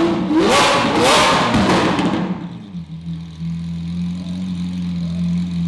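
Lamborghini Aventador's V12 engine revved in quick blips with rising pitch, then dropping to a steady idle about two seconds in.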